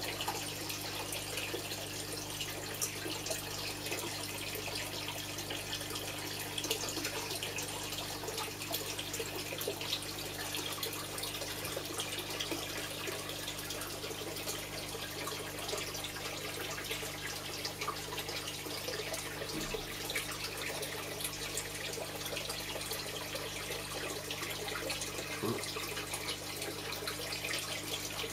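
Water trickling and splashing steadily into an indoor koi pond, over a steady low hum.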